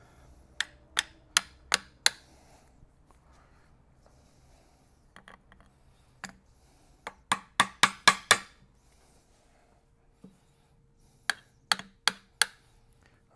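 A hammer striking metal: three runs of quick, sharp blows, five or six at a time, a few per second.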